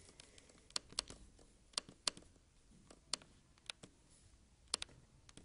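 Quiet, irregular clicks of a computer mouse, about ten in all, some in quick pairs like double-clicks, as text is selected and highlighted in a word processor.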